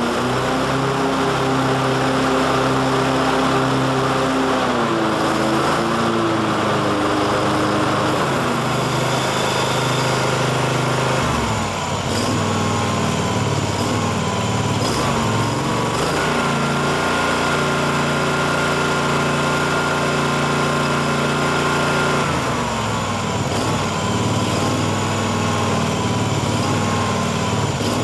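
The SCAG Advantage walk-behind mower's 19 hp Kawasaki twin-cylinder engine running steadily at a stand. Its speed changes a few times: it drops about five seconds in and again around twelve seconds, rises around sixteen seconds and falls back around twenty-two seconds.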